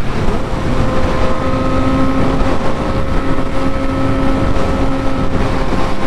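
Yamaha R6's inline-four engine running at a steady pitch while cruising at highway speed, with heavy wind rush over the helmet-mounted microphone.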